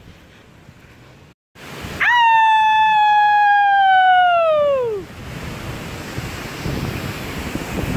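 A long, high howl-like call starting about two seconds in, held on one note for about three seconds and then sliding down in pitch, followed by a steady rushing noise like running water.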